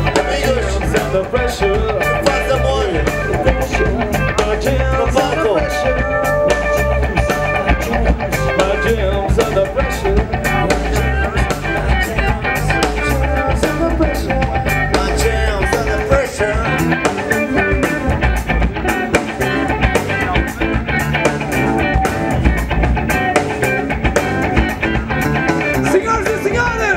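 Live band playing: drum kit, electric bass and guitar, with singing at times.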